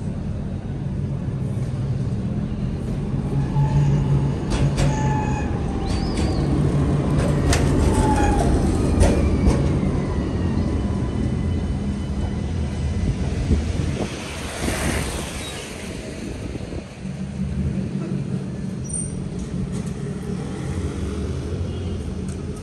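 Low-floor tram running: a steady motor hum with wheel-and-rail clicks and faint squeals, and a brief hiss about fourteen seconds in.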